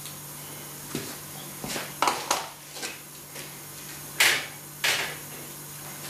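A series of short clatters and knocks from tools and hardware being handled and set down in a workshop, the two loudest about four and five seconds in, over a steady low hum.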